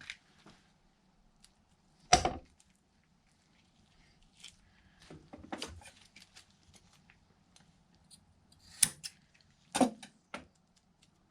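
Scattered clicks and knocks of hand tools being handled at a workbench, among them scissors snipping carbon fiber cloth. The louder knocks come about two seconds in and twice near the end.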